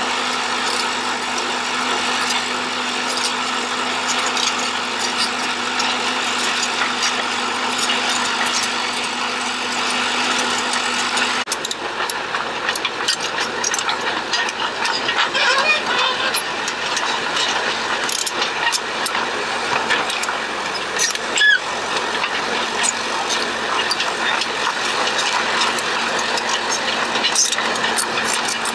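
Excavator engine running steadily, with an abrupt change about a third of the way in and scattered clicks and knocks after it.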